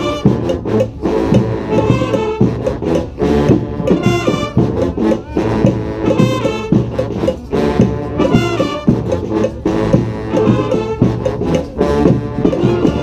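Brass street band with drums playing a salsa tune: horns over a steady, busy percussion beat.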